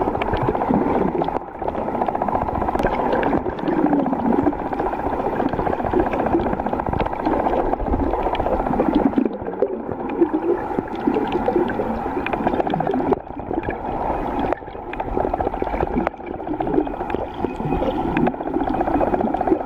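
Muffled underwater sound picked up by a camera held below the surface: water sloshing and gurgling, with many small scattered clicks.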